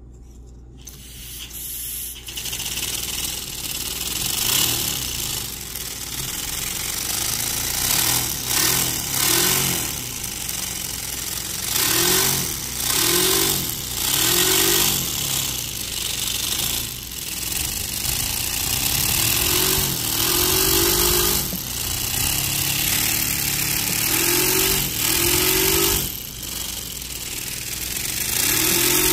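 Miniature paper V-twin engine running on compressed air, with a steady hiss of air. It picks up from quiet in the first couple of seconds, then revs up and falls back again and again, often in quick pairs.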